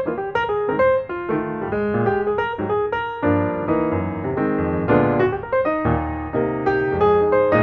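Background piano music: quick runs of notes, then fuller chords about three seconds in.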